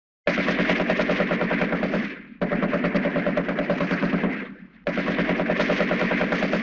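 Vintage stock sound effect of automatic gunfire: three bursts of rapid machine-gun fire, each about two seconds long, with short breaks between them.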